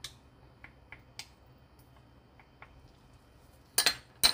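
A few faint clinks, then several sharp knocks near the end as a wooden spoon strikes a frying pan.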